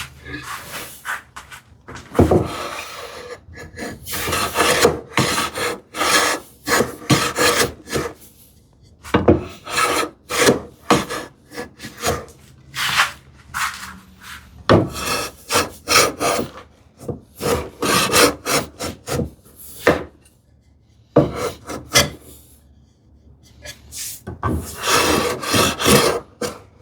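Long-soled hand plane taking shallow strokes along the edge of a board: repeated short swishing strokes in runs, with pauses between the runs.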